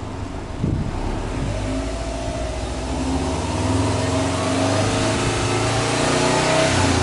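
Subaru Impreza WRX STI A-Line's turbocharged 2.5-litre flat-four, heard at the exhaust tips, revved with the car standing: the revs climb slowly over several seconds, then fall back near the end.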